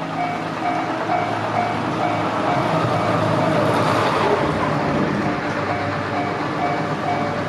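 Japanese level-crossing warning bell ringing steadily at about two dings a second, while a train runs over the crossing with a rumble that swells loudest around the middle and then eases.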